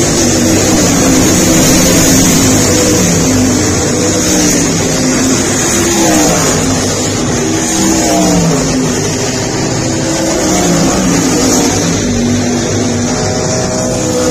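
Several race car engines running hard at once, their pitches rising and falling over and over as the cars come through and throttle up and off.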